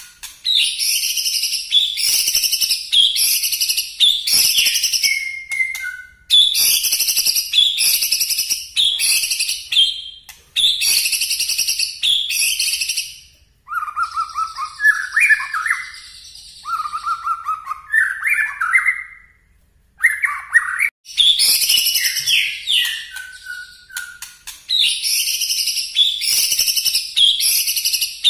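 White-rumped shama singing loud, rapid-fire bursts of high whistled phrases with short pauses between them (the bird 'shooting'). In the middle the song drops to lower, softer warbled phrases for several seconds before the loud bursts return.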